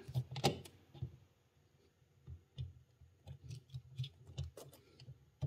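Faint, scattered clicks and scrapes of a torque screwdriver's blade working in a circuit breaker's soft-metal terminal screw, with a short lull about a second in. The blade does not sit deep enough in the slot and is scraping metal off the screw.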